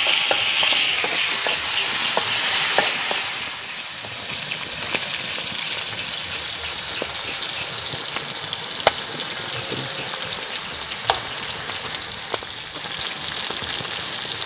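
Rice-field eels frying in hot oil in a wok: a steady sizzle, louder for the first few seconds and then settling softer, with occasional sharp pops.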